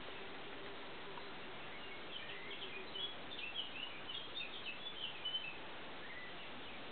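Small birds chirping in the background: a run of short, high chirps from about two seconds in to about five and a half seconds, over a steady hiss of ambient noise.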